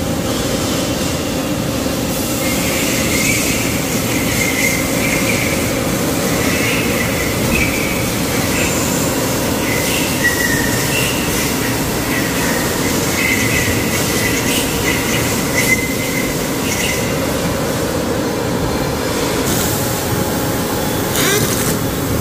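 Machine-shop noise: the steady drone of running machining equipment, with intermittent high-pitched squealing tones over it and a couple of short rising chirps near the end.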